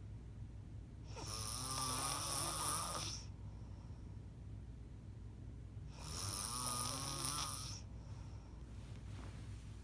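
A person snoring: two long, loud snores with a wavering, pitched tone, about four seconds apart, with quieter breathing between.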